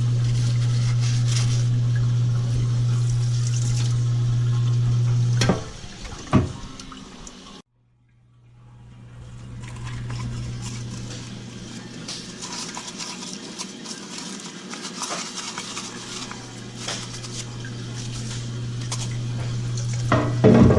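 Water running with a steady low hum. About five and a half seconds in, a knock cuts the hum off. After a brief silence the running-water noise returns more quietly, and there is a clatter near the end.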